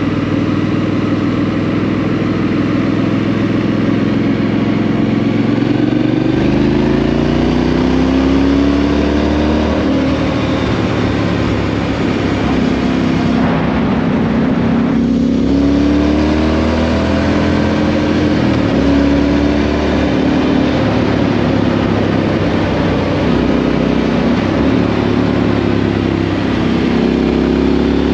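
2018 Triumph Street Scrambler 900's parallel-twin engine through a Vance & Hines exhaust, under way and pulling hard. Its pitch climbs with the revs and drops back several times as the rider works the throttle and gears.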